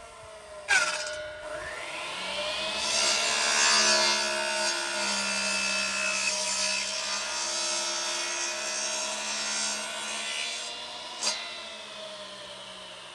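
Electric compound miter saw switched on about a second in, its motor whining up to speed, then the blade cutting through a thin wooden plank for several seconds. Near the end there is a sharp knock and the motor whines down.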